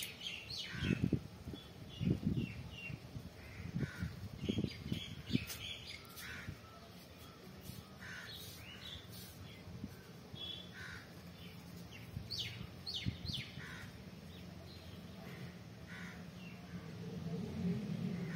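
Birds calling and chirping, many short high calls scattered throughout, with a few soft low bumps in the first five seconds.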